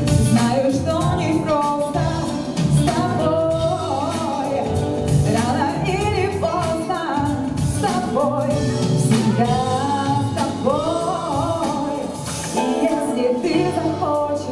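A woman singing a pop ballad live through a microphone and PA, over backing music with a steady beat. The voice glides through long held notes and does not stop.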